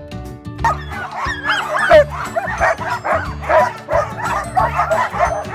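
A team of harnessed sled dogs barking and yipping all at once, many voices overlapping, starting about half a second in: the din of a hitched team eager to run. Background music plays underneath.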